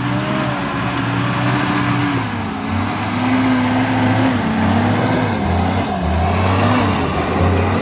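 WWII-style jeep engine working hard as the jeep climbs a steep, rough dirt slope, its revs rising and falling repeatedly as the driver works the throttle over the bumps.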